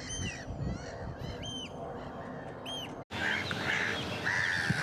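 Birds calling outdoors: repeated short, sharp calls that rise and fall in pitch. The sound cuts abruptly about three seconds in to another stretch of bird calls.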